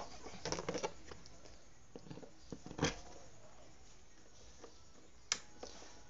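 Mondial table fan's plastic blade being handled and fitted onto the motor shaft: a few light clicks and taps, a louder knock about three seconds in, and a sharp click near the end.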